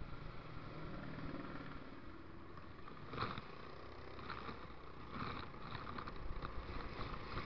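A motor scooter riding along a wet road, its engine and tyre noise heard through an action camera's waterproof case, with passing traffic.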